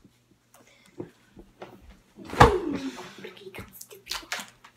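A PVC pipe with a duct tape grip, swung and knocking against something: one loud thump about halfway through with a short falling tone after it, and a few lighter knocks around it.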